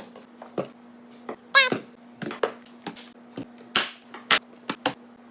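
Condiment bottles and jars being handled in and out of a fridge: a string of light knocks and clicks as containers are picked up and set down, over a steady low hum. About a second and a half in there is one short high-pitched squeak, and a brief rustling swipe comes near the four-second mark.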